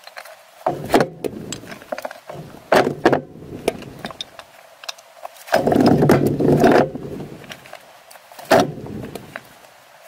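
Split firewood logs knocking and clattering together as they are handled and set down in a stack, in several bursts, the longest about six seconds in.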